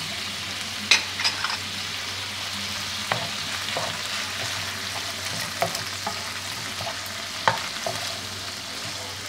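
Shrimp, diced turkey breast and mushrooms sizzling in oil in a nonstick frying pan as they are stirred with a spatula that scrapes and knocks against the pan a few times, sharpest about a second in and again near the end. The filling is being cooked down until it dries and the shrimp cook through.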